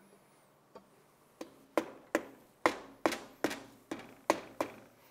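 A series of sharp clicks, about two or three a second, starting about a second and a half in, each with a short ringing tail.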